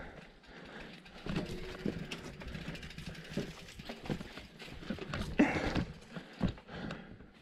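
A Canyon Torque full-suspension mountain bike clattering and knocking over stone paving and steps, irregular clunks and rattles, with one louder thump about five and a half seconds in.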